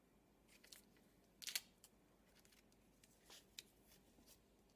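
Near silence with a few faint paper rustles and clicks as a small paper hat is handled and pressed onto a wall calendar, the loudest about one and a half seconds in.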